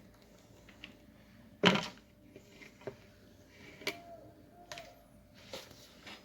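Kitchen utensils knocking against a mixing bowl while a batter is handled: one loud knock about a second and a half in, then a few lighter taps and clinks.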